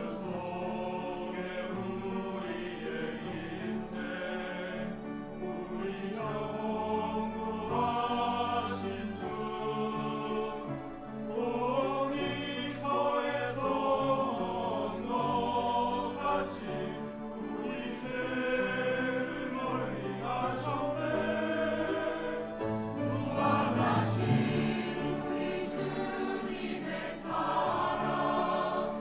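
Church choir singing a sacred anthem in sustained, many-voiced chords.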